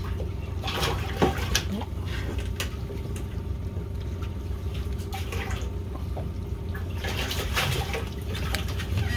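Water splashing in a boat's live fish well as a live fish is put in, with louder splashes about a second in and near the end, over a steady low hum.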